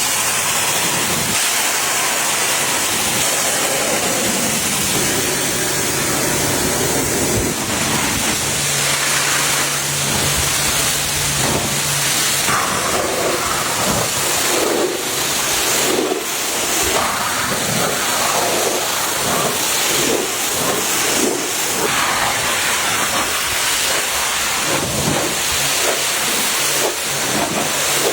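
Steady hissing spray from car-cleaning equipment, its strength shifting as it works, with a low hum from the machine for a few seconds about a third of the way in.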